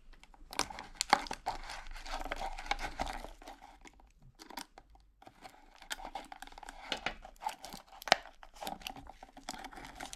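Packing tape being slit with a knife blade and the packaging torn and handled: scratchy tearing and crinkling with many sharp clicks, pausing briefly about four seconds in before starting again.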